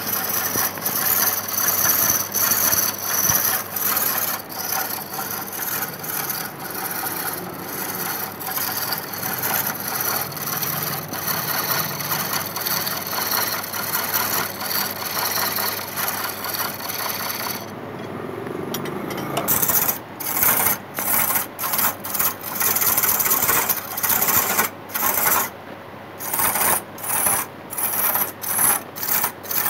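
A hand turning chisel cutting the rim of a large wooden disc spinning on a lathe, making a continuous rasping scrape. About two-thirds of the way through the cutting breaks off for a moment, then comes back as a run of short cuts with brief breaks between them.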